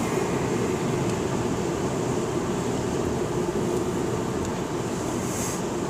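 Steady road noise inside a moving car's cabin, its tyres rolling on wet pavement.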